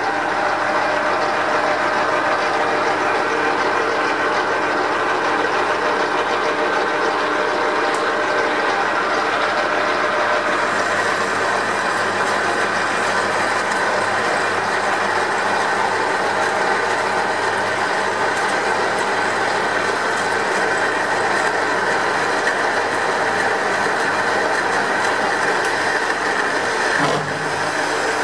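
Metal lathe running steadily with a gear whine, while a boring bar cuts inside the workpiece's bore; the cutting hiss grows brighter about a third of the way in.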